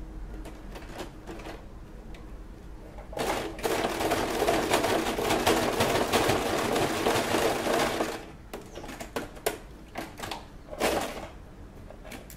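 Electric domestic sewing machine stitching a short zigzag bar tack. A few faint clicks come first, then about five seconds of continuous stitching, then several short bursts of stitching near the end.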